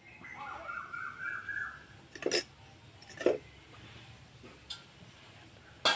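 A bird calls once for about a second near the start. Then come three sharp clinks of steel bowls and a jar being handled.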